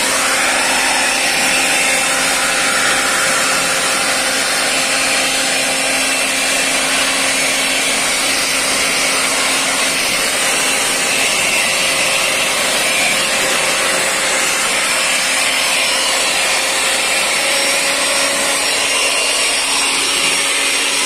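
Steady machine noise: an electric motor running without a break, with a steady hum and a strong high hiss.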